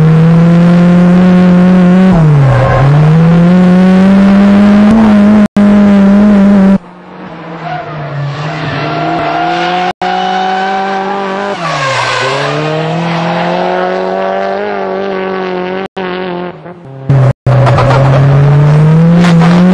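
Nissan 180SX pickup conversion's turbocharged four-cylinder engine revving hard while drifting, with some tyre squeal. The engine pitch climbs, drops sharply and climbs back about three seconds in and again about twelve seconds in. The sound cuts out for an instant several times at edits.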